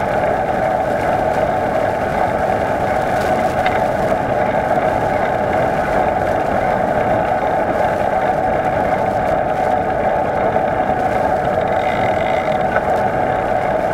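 Steady rolling noise of a bicycle ridden along a paved path, tyres and motion noise picked up by a camera mounted on the bike, unbroken and even in level.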